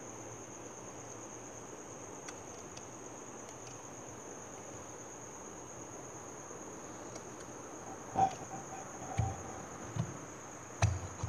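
Scissors cutting through embroidered fabric set with small stones: quiet snipping, then a few sharp clicks and low thuds from about eight seconds in. A steady high-pitched whine runs underneath throughout.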